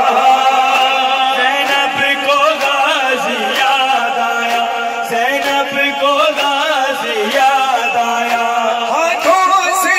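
Male voices chanting a noha through a loudspeaker system in long drawn-out notes, over a steady beat of sharp matam strikes, mourners' hands striking their chests about twice a second.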